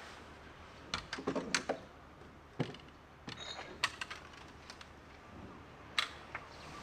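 Mechanical handling noise: a quick run of sharp clicks and small knocks about a second in, then scattered single clicks and taps over a soft background hiss.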